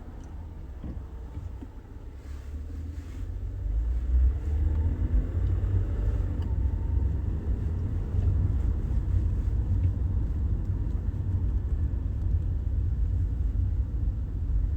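Low rumble of a car driving, heard from inside the cabin; it grows louder about four seconds in, as the car picks up speed, then holds steady.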